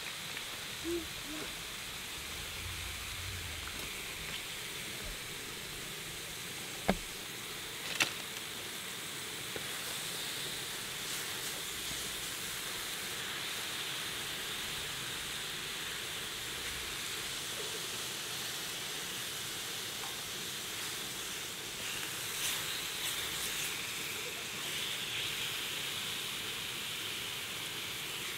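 Thin slices of pork belly sizzling steadily on a hot griddle as their fat renders out. Two sharp clicks about a second apart come some seven seconds in.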